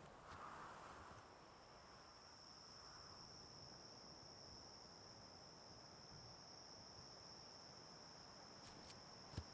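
Faint forest ambience with an insect's steady high-pitched drone, coming in about a second in and holding without a break. Near the end there are a few small clicks and one sharp snap.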